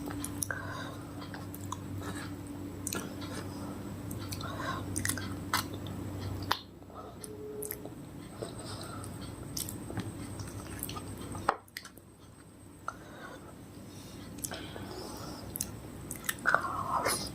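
Close-miked chewing of soft fruit, with many short wet mouth clicks and smacks. The low background hum drops away suddenly about six seconds in.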